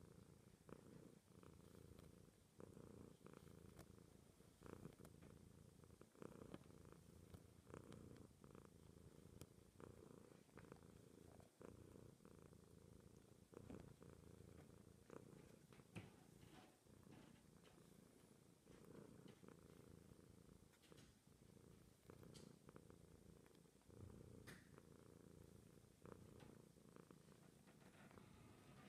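Domestic cat purring quietly and steadily, the purr of a content cat.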